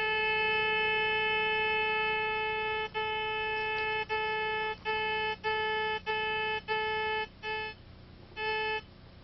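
Sewer-locating receiver's audio tone: steady at first, then breaking into shorter and shorter beeps from about three seconds in, with a last brief beep near the end before it drops out. The breaking tone is the sign of the antenna nearing the null over the buried transmitter.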